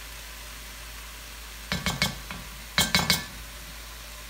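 Diced peppers and onions sizzling quietly in a cast-iron Dutch oven. Partway through come a few sharp taps, then three louder ringing clinks, as kitchen utensils knock against the pot and measuring cup.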